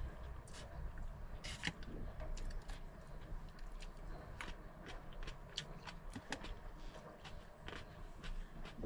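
Scattered small clicks and rustles of hands picking through food on a tray, with chewing, over a steady low hum.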